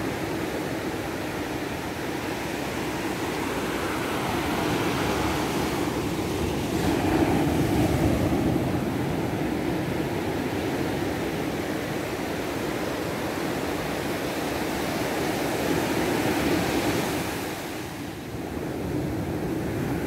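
Surf breaking and washing up a sandy beach: a continuous rush of waves that swells louder about seven seconds in and again near the end, easing briefly just before the end.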